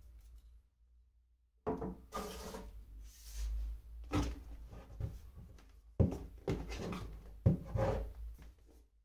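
Handling sounds on a desk: rubbing and sliding of objects, with several sharp knocks.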